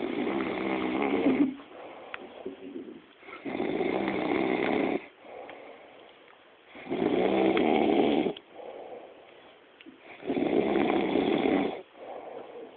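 A man snoring: four long snores about three and a half seconds apart, each lasting about a second and a half, with quieter breathing sounds between them.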